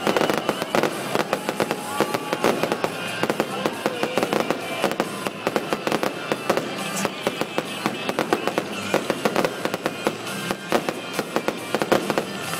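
Aerial fireworks going off in a rapid, continuous barrage: many sharp bangs and crackles a second, with music playing underneath.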